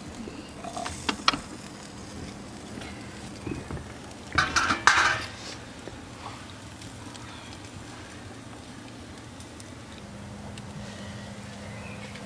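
Metal tongs clicking and scraping against the wire grate of a small charcoal grill, a few sharp clicks about a second in and a louder cluster about four to five seconds in, over the faint sizzle of meat cooking on the coals.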